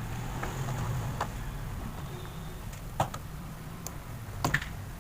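A few scattered small clicks and taps from hands working on the sprayer's switch wiring, over a low steady hum.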